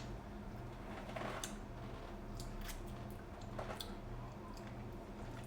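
Faint wet clicks and squishes of a person chewing and sucking on lemon slices, a few sharp ticks scattered through, over a steady low hum.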